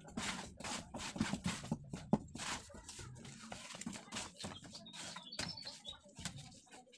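Irregular clicks, knocks and light rattling as a metal electrical panel box is handled and fitted against a hollow concrete-block wall.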